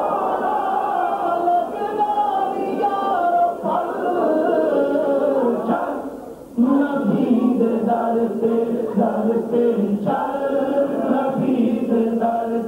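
Unaccompanied devotional naat singing: several voices sing long, drawn-out melodic lines together, with a short break about six seconds in before a new phrase starts on a lower, held note.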